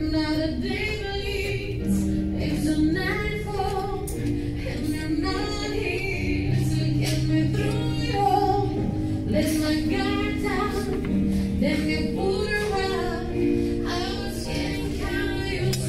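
Background music: a song with a woman singing over sustained bass notes.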